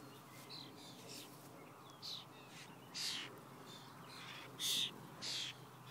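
Birds giving short, harsh calls, four louder ones spaced about a second apart, the loudest about three-quarters of the way through, over a faint steady background.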